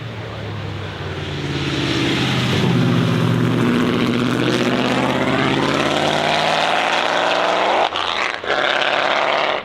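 A 1937 Mercedes-Benz W125's supercharged straight-eight engine accelerating hard, its pitch dipping and then climbing steadily. The sound breaks off twice briefly near the end, then carries on.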